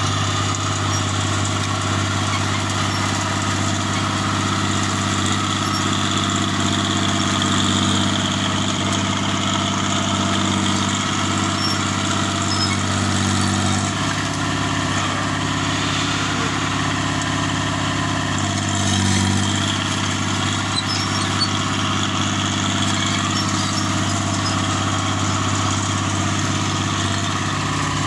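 Crawler bulldozer's diesel engine running steadily under load as the dozer pushes brush and small trees with its blade. The engine note shifts about halfway through and changes again briefly a few seconds later.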